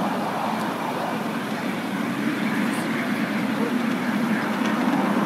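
Miniature ride-on train running along its track, a steady rumble of the wheels on the rails and the locomotive.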